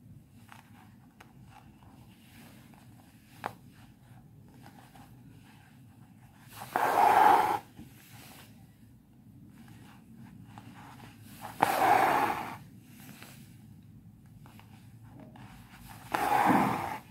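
Embroidery thread being drawn through taut fabric in an embroidery hoop, a rasping pull of about a second, three times a few seconds apart, with faint small clicks between.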